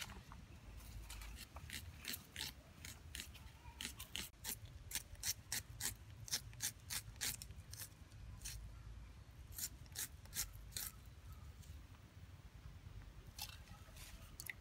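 A small knife slicing through a raw red onion held in the hand: a quick run of crisp crunching cuts, several a second, that thins out and stops about three-quarters of the way through.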